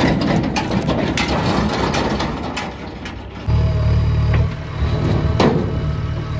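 Heavy diesel machinery running: first a tractor with scattered knocks and crunches, then, after an abrupt change about three and a half seconds in, the louder, deeper steady run of a JCB 3DX backhoe loader's engine. A sharp knock near the end fits a clump of cow dung dropping from the bucket into the trailer.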